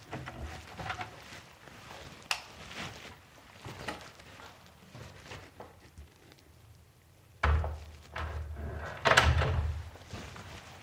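A door being opened with a thud and then pulled shut with a louder thump about a second and a half later, after a stretch of faint clicks and rustles.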